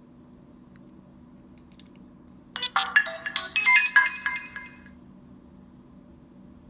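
Nokia N82 mobile phone playing a short ringtone: a quick run of chiming notes starts about two and a half seconds in, lasts about two seconds and dies away.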